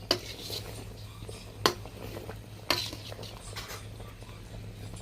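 Kitchen utensils knocking and clinking against cookware: three sharp clacks with lighter clatter between them, over a steady low hum.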